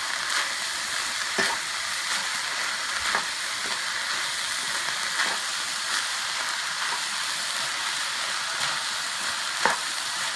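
Ground beef with chopped onions, bell peppers and jalapeno sizzling in a nonstick frying pan, sautéing steadily. A wooden spatula stirs it, scraping and knocking against the pan now and then, with a sharper knock near the end.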